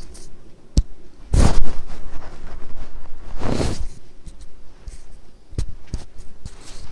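Handling noise from a phone held close while walking: rustling and scraping against the microphone, with a few sharp clicks and two louder scrapes, about a second and a half in and again past the middle.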